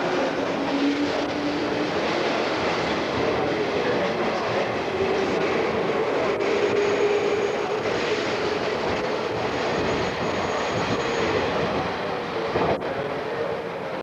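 JR 201 series electric train moving along a platform: steady running noise with a humming motor tone that drifts in pitch, and a faint high whine for a few seconds in the middle.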